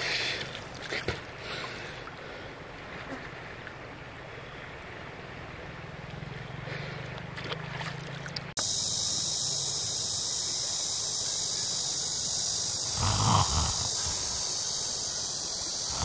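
Light splashing and lapping of shallow river water around a person lying in it. About halfway through, the sound cuts abruptly to a steady high hiss, with a short louder low sound a few seconds before the end.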